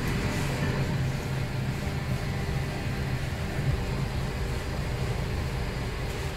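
Steady hum and rumble of bakery machinery running.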